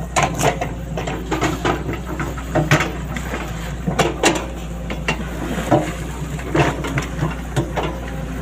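Sany SY135F excavator engine running steadily, with a string of irregular clanks and knocks, about one or two a second, over its drone.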